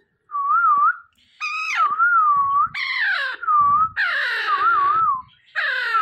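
A young Alexandrine parrot calling: short wavering whistles alternate with four louder calls that fall in pitch.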